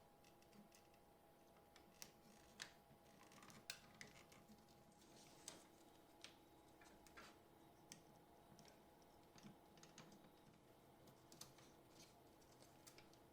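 Near silence with faint, irregular small clicks and taps over a low steady hum.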